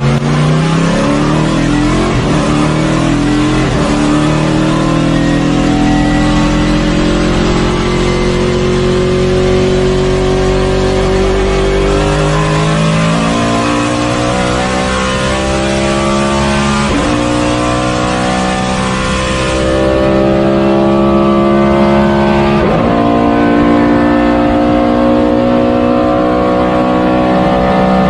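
Race car engine accelerating through the gears. Its pitch climbs slowly and drops sharply at upshifts about 17 and 23 seconds in.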